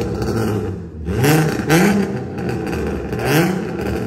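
Unmuffled V8 exhaust revved in quick, regular blips, the engine note rising and falling about three times every two seconds: the sound of a muffler delete.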